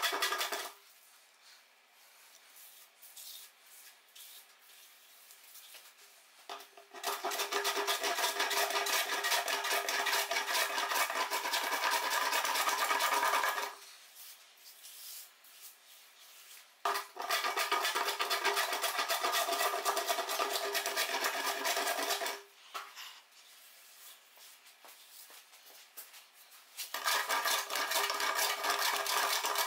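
Hand plane shaving across a laminated softwood benchtop: rough scraping bouts of rapid strokes, each lasting several seconds, with quiet pauses between them.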